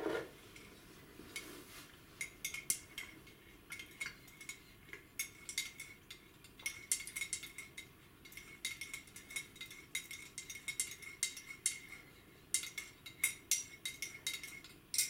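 Teaspoon stirring in a ceramic cup: quick, irregular clinks against the cup wall, several a second in clusters, each with a short ringing tone.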